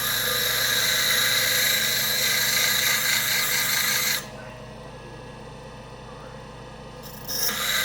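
Electric blade-sharpening machine running, its motor humming steadily while something is pressed against the spinning wheel to give a loud high grinding hiss. About four seconds in the contact stops and only the motor hum is left, then the grinding starts again near the end.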